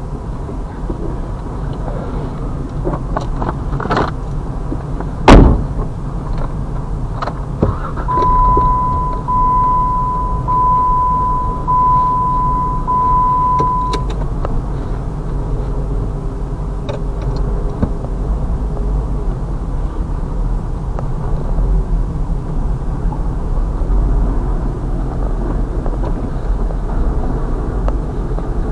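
Steady low rumble of a stopped, running car heard from inside the cabin. About five seconds in there is one loud sharp knock. From about 8 to 14 seconds an electronic tone beeps in five long, evenly spaced pulses.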